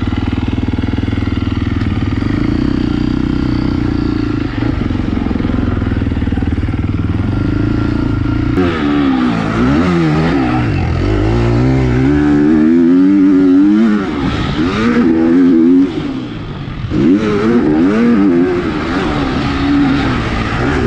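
Motocross bike engine idling steadily, then pulling away about eight seconds in, its note rising and falling again and again as it revs and shifts up, with a brief let-off of the throttle about sixteen seconds in.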